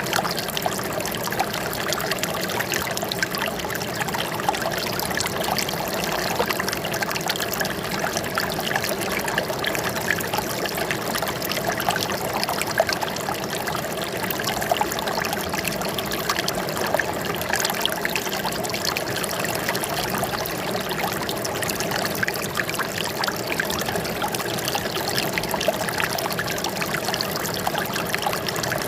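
Flowing water trickling and babbling steadily, a dense patter of small splashes with no pause.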